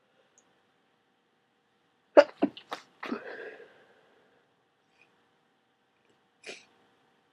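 A person with a heavy head cold sneezing wet and snotty: a quick run of four sneezes about two seconds in, the first the loudest and the last drawn out. A single short sniff follows near the end.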